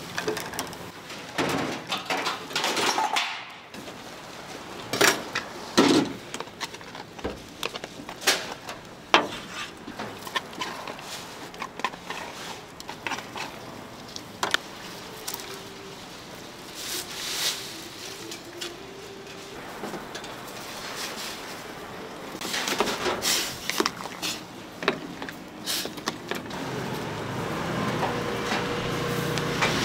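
Street-food stall clatter: scattered clinks and knocks of a ladle and utensils against steel trays over a steady background of street noise. Near the end a low vehicle rumble builds.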